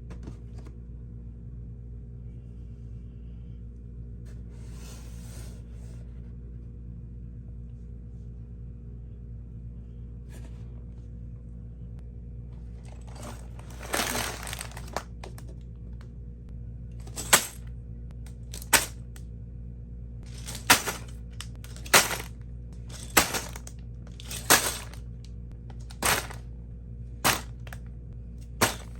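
A steady electrical hum. About halfway in, LEGO packaging crinkles and tears for a second or so. Then come a series of sharp plastic clicks, about one every second and a half.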